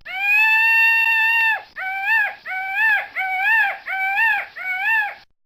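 Peacock calling: one long, loud wail, then a run of five shorter calls in quick succession, each rising and falling in pitch.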